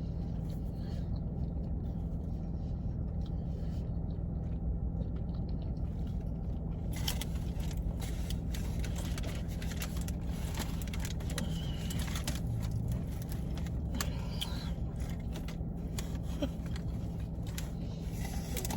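A person chewing a mouthful of sub sandwich, with soft clicks from about seven seconds in, over a steady low hum.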